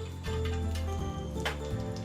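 Background music: held notes over a steady bass line, with light ticking percussion.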